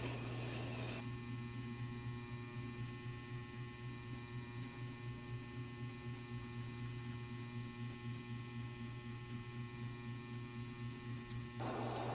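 Steady low electrical hum with faint steady tones above it. A louder burst of noise cuts in near the end.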